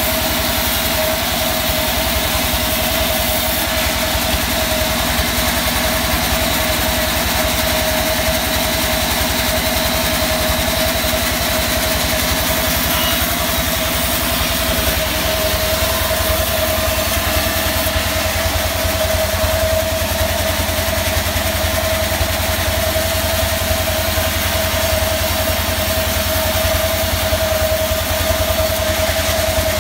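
Large vertical band saw running steadily while a mahogany log is fed through and sawn lengthwise. It makes a constant high whine over a low, engine-like throb that grows heavier about halfway through.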